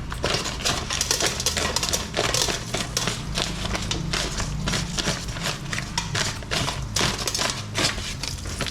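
Popcorn kernels in hot oil in a lidded pot on a gas stove, crackling and sizzling densely as they begin to pop, over a steady low hum.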